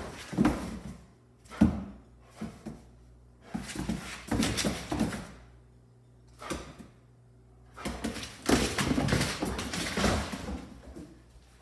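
Two Doberman pinschers play-wrestling on a tile floor: scuffling, claws scrabbling on the tile and bumps of bodies, in irregular bursts with short lulls between.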